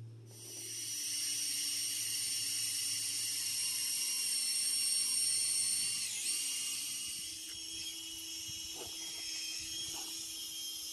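A dense, steady, high-pitched buzzing chorus of cicadas, coming in abruptly just after the start, with a brief dip in pitch about halfway through. A couple of faint knocks sound near the end.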